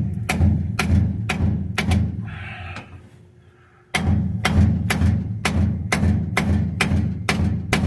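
Hammer blows on a bearing race driver, tapping a new bearing race into the rear axle housing: sharp ringing metal strikes about two a second, in two runs with a short pause about two and a half seconds in.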